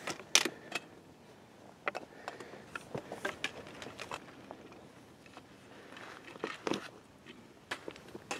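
Faint, irregular clicks and taps of handling noise from a handheld camera as it is moved and zoomed, over a light background hiss.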